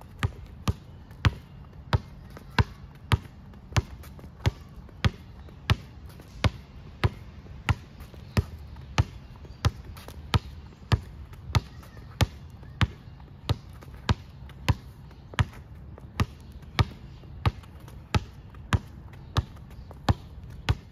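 Basketball dribbled on an asphalt court in a steady rhythm, about three sharp bounces every two seconds, over a low steady background rumble.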